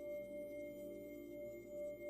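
Ambient atmosphere drone: several steady ringing tones held together, gently swelling and fading in loudness.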